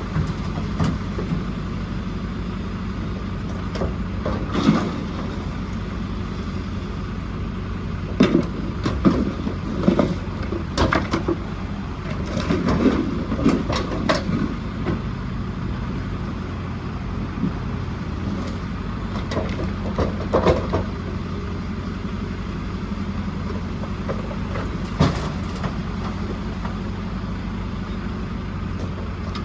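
JCB 4CX backhoe loader's diesel engine running steadily, with scattered knocks and clatters, busiest in the middle, from its bucket working rubble.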